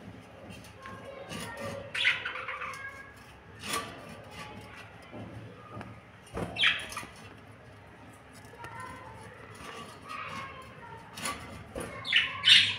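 Fischer's lovebirds giving short, high chirps and squawks every few seconds, with the loudest quick run of calls near the end.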